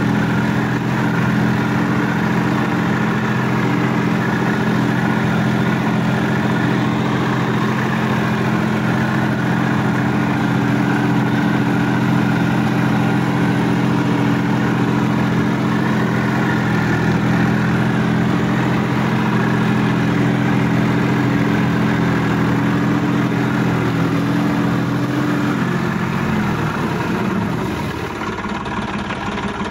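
Sonalika DI-50 RX Supreme tractor's diesel engine running steadily while the tractor drives through a muddy field. Near the end the engine note drops as the revs come down.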